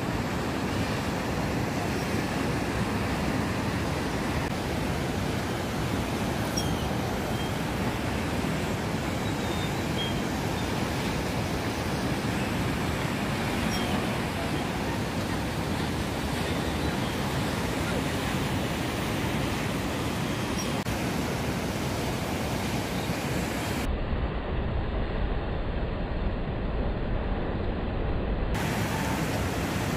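Steady rushing hiss of breaking waves and churning whitewater in an artificial wave pool. For a few seconds near the end the sound turns duller, with a stronger low rumble.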